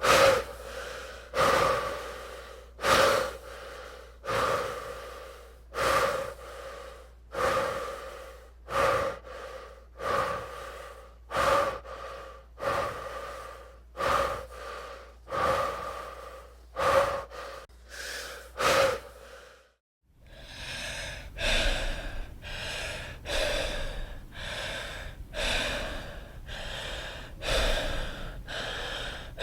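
An athlete's laboured, heavy breathing after hard exertion: loud, sharp breaths about every second and a half, each trailing off. About twenty seconds in it cuts to a second take of quicker, softer panting, about one breath a second.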